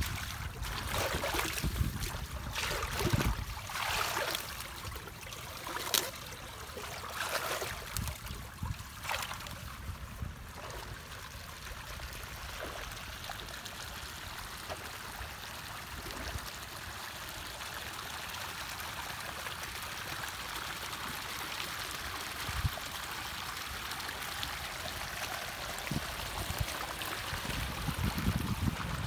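Muddy water running and trickling along a drainage ditch, with several splashes and sloshes in the first ten seconds as hands work in the water, then a steady flow.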